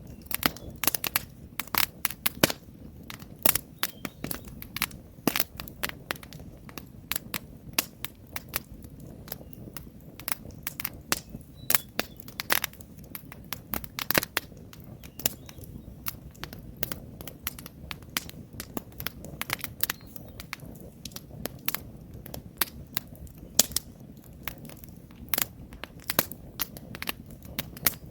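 Wood campfire burning, with irregular sharp crackles and pops, several a second and some louder than the rest, over a low steady rumble of the flames.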